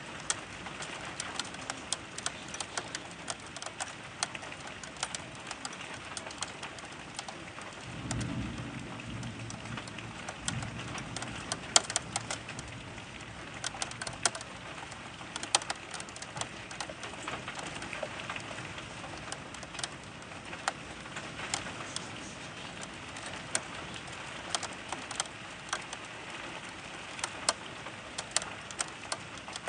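Rain falling, with irregular drops ticking sharply against the window. About eight seconds in, a low rumble of thunder swells and fades over a few seconds.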